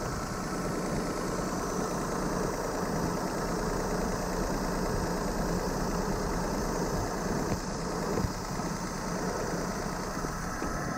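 Daihatsu Move L150S three-cylinder engine idling roughly with a loud exhaust: the middle cylinder's ignition coil has failed, leaving the engine running on two cylinders.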